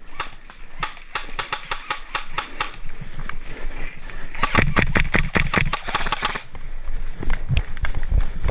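Airsoft gun firing: a string of rapid shots over the first few seconds, then a faster, louder burst about four and a half seconds in that lasts nearly two seconds. A few dull thumps follow near the end.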